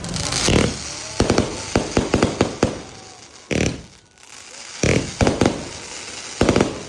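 Pegasus Fireworks 'Glowing Night' 100-shot firework cake firing its shots as sharp bangs, each with a short tail. There is a quick run of about a dozen shots between one and three seconds in, then single bangs spaced a second or more apart.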